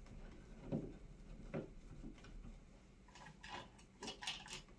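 Faint small clicks and scrapes of hands working an old wall light switch and its screws in the electrical box, a few scattered at first, then a quicker cluster of sharper ticks in the second half.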